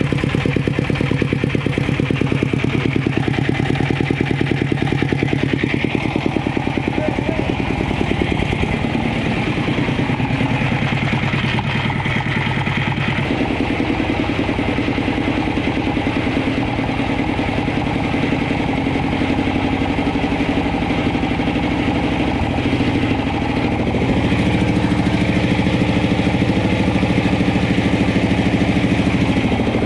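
Chinese single-cylinder horizontal diesel engine running steadily after an electric start, with a dense even firing beat. Its note shifts about a third of the way in and it gets somewhat louder near the end.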